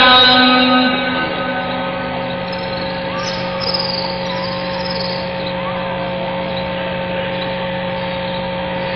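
The imam's chanted voice over the mosque's loudspeakers trails off within the first second. It is followed by a steady hum of the prayer broadcast's ambience: constant tones over an even hiss, with a few faint high chirps about three to four seconds in.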